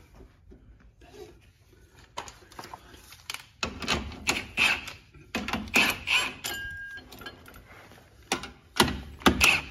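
Bursts of irregular metallic clicking and clattering from handling the rear sway bar and its bolted end-link hardware, heaviest in the middle and again near the end.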